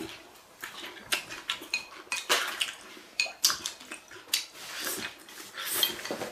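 Wooden chopsticks clicking and scraping against a ceramic bowl in quick, irregular strokes while noodles are slurped and eaten straight from the bowl.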